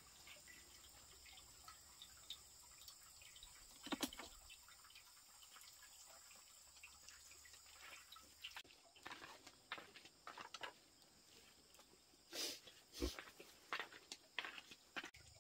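Near silence in a small room, with faint scattered taps and clicks, a single sharper knock about four seconds in, and a cluster of louder taps and a dull thud in the last few seconds.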